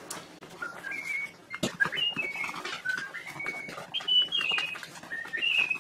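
A person whistling a short tune, quick notes that step up and down in pitch, with a few light clicks mixed in.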